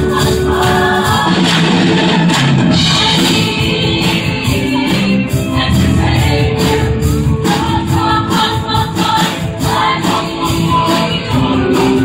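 High school show choir singing an upbeat pop number together, backed by a live band with drums and horns, with a steady beat.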